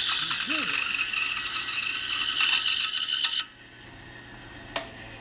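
Pegas scroll saw blade cutting through a wooden box piece: a loud, even rasping that stops suddenly about three and a half seconds in, leaving the saw's quieter hum. A single sharp click near the end.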